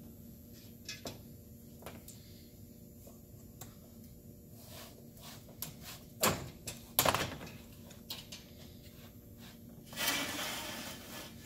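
A pegboard panel being handled and fitted into steel shelving uprights: a few light clicks, two loud knocks a little past halfway as the board hits the metal frame, then a scraping slide near the end as it is pushed down into its slot.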